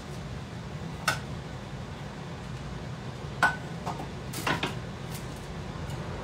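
Kitchen cookware clinking at the stovetop: a few sharp clinks, one about a second in, the loudest about three and a half seconds in with a brief ring, and a quick pair near four and a half seconds, over a steady low hum.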